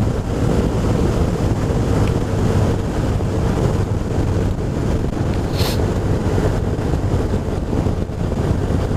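BMW R1200RT's boxer-twin engine running at a steady cruise, with wind noise on the microphone and tyre hiss on a wet road. A brief hiss cuts in about five and a half seconds in.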